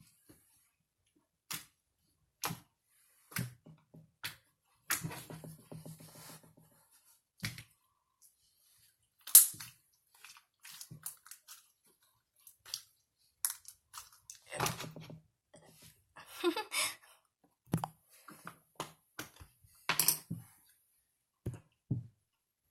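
Slime being handled and squeezed: scattered clicks and pops at irregular intervals, the loudest about nine seconds in and again near twenty seconds.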